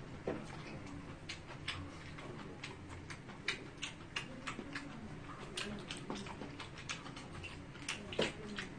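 Scattered small clicks and mouth smacks, a few a second, from a man eating and handling a carton of milk at a table, over a faint steady hum.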